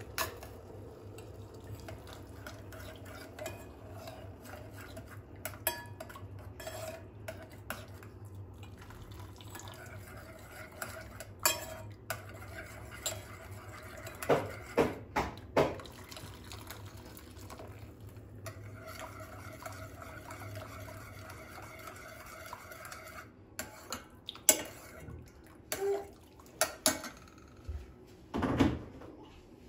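Kitchen clatter: a metal spoon clinking and knocking against bowls and dishes as a sauce is mixed, in scattered sharp clinks that bunch together about halfway through and again near the end, over a faint steady low hum.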